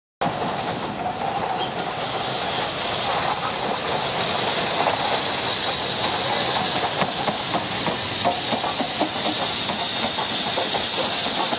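BR Standard Class 7 'Britannia' steam locomotive 70013 Oliver Cromwell passing with its cylinder drain cocks open: a loud, steady hiss of steam with rapid knocks and clatter through it. It starts abruptly just after the start and grows slightly louder.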